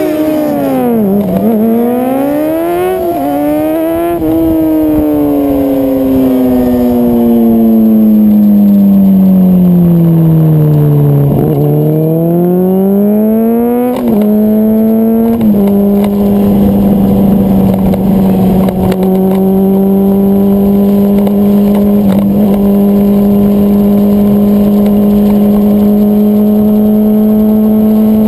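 Sport motorcycle engine heard from the bike itself. Its pitch climbs and drops with throttle and gear changes for about the first fifteen seconds, then holds a steady note at cruising speed.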